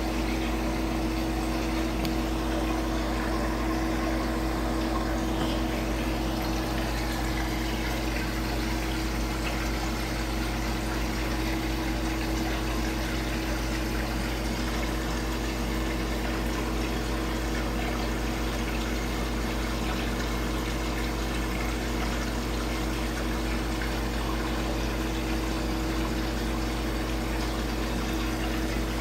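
Aquarium pump running with a steady hum, with water moving over it.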